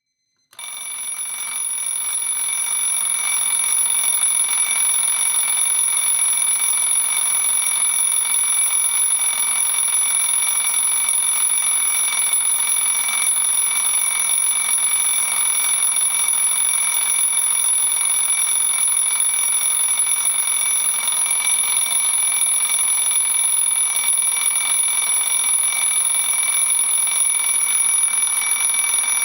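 Twin-bell mechanical alarm clock ringing continuously and loudly, a rapid metallic bell clatter. It starts about half a second in and swells over the first few seconds to a steady level.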